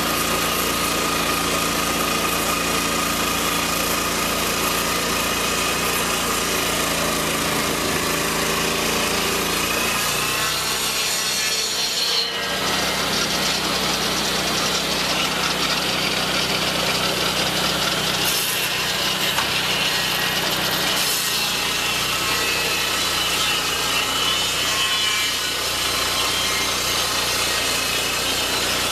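Lucas swingblade sawmill cutting through a log: the circular blade saws steadily into the wood under load, driven by the mill's petrol engine running at a constant pitch.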